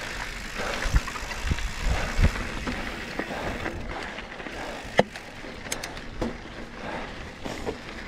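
Mountain bike riding over rough trail: steady tyre and wind rumble, broken by sharp knocks and rattles as the bike hits bumps, the loudest about five seconds in.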